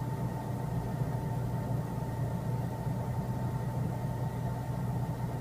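A steady low mechanical hum with a faint constant high whine, unchanging throughout.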